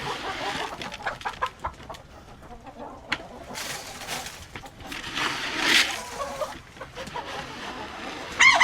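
Chickens clucking and moving about, with scratchy rustling and a loud, short pitched squawk near the end.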